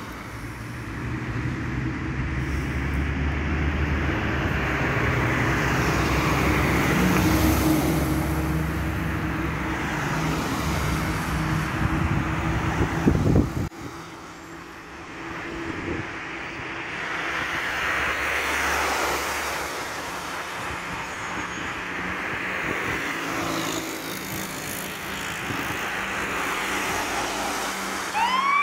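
Road traffic: cars passing one after another, each swelling and fading, over a low engine hum that cuts off abruptly about halfway through.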